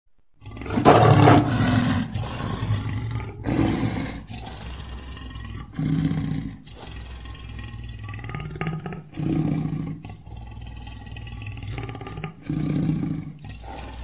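A lion roaring: one loud, drawn-out roar about a second in, then a series of shorter, deep roars about every three seconds.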